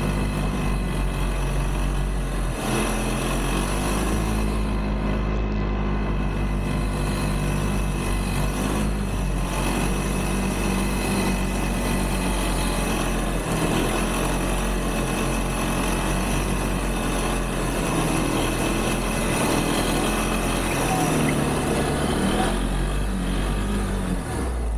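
ATV engine running under load, carrying two riders up a snowy driveway, its pitch rising and falling a few times with the throttle.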